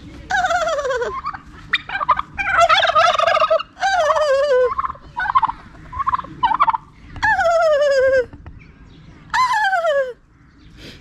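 Domestic turkey toms gobbling again and again: about five loud gobbles, each falling in pitch, with a few shorter calls between them.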